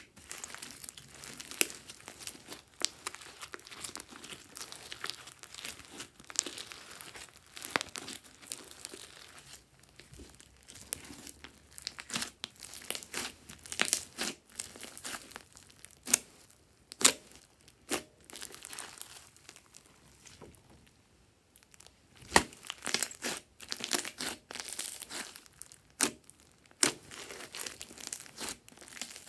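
A large mass of green slime mixed with foam beads being kneaded and squeezed by hand: sticky squishing with many irregular sharp pops of trapped air, easing off briefly about two-thirds of the way through.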